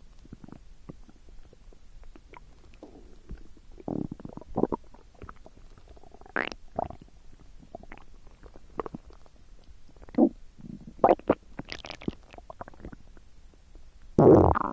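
Human stomach gurgling and rumbling: irregular short gurgles and squelches, the loudest and longest about fourteen seconds in.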